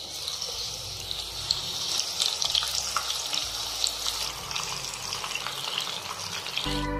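Marinated chicken pieces deep-frying in very hot oil: a steady sizzle full of small crackles and pops as the pieces are put into the oil one by one. Background music comes in near the end.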